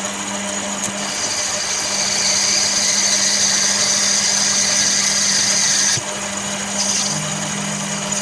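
Chester DB10 metal lathe running with a steady motor hum while a turning tool cuts a brass bar down in diameter. A higher hiss of the cut comes in about a second in and stops about six seconds in, leaving the lathe's hum.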